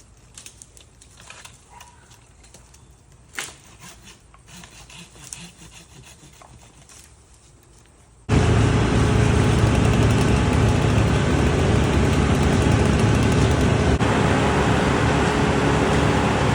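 Tree-service power equipment engine running loud and steady, with a low hum, cutting in abruptly at full volume about halfway through. Before that there are only faint scattered clicks and one sharp knock.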